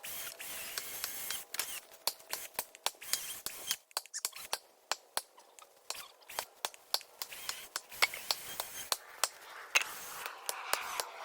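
Irregular sharp snaps and crackles of dry brush and twigs, a few each second, with no engine running.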